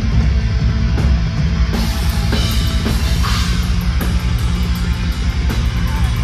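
Black metal band playing live: distorted guitars and bass over fast, driving drums, with cymbals washing in about two seconds in.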